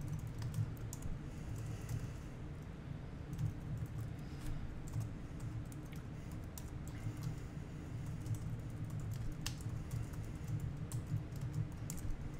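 Typing on a computer keyboard: irregular runs of light keystroke clicks with short pauses, over a steady low background hum.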